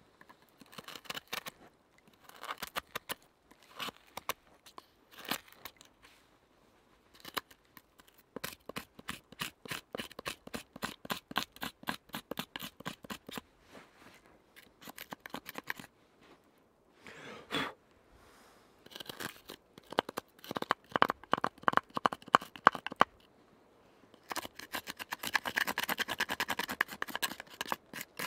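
Knife blade scraping burned char out of the bowl of a wooden spoon in runs of quick, rasping strokes, with short pauses between the runs, hollowing the bowl by burning and scraping.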